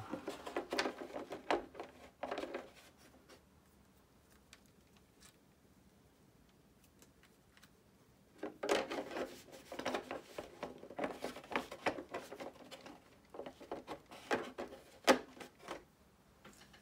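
Plastic RC crawler body shell being handled and fitted onto the chassis: clusters of light clicks, taps, rattles and rubbing in two spells with a pause of several seconds between, and one sharp click near the end, the loudest.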